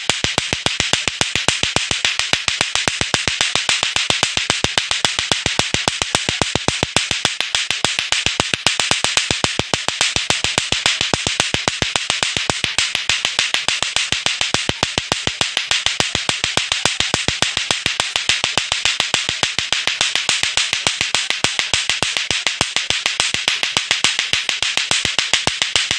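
Lato-lato clackers: two hard plastic balls on a string knocking together in a fast, steady rhythm of loud, sharp clacks, several a second, kept going without a break.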